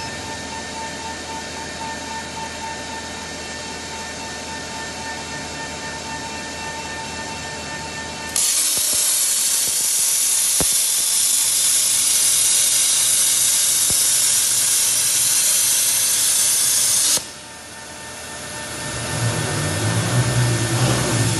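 CNC plasma cutter's torch firing and cutting metal plate: a loud, steady hiss that starts abruptly about eight seconds in and cuts off suddenly about nine seconds later. Before it, a steady machine hum with a faint whine; near the end a low rumble rises.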